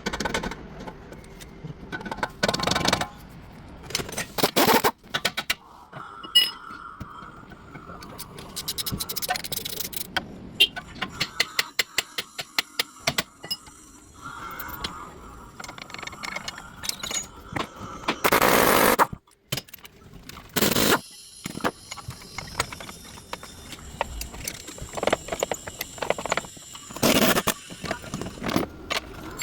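Metal tools and parts clinking and scraping, with runs of rapid clicking and a few loud bursts of noise lasting about a second each, near the middle and later on.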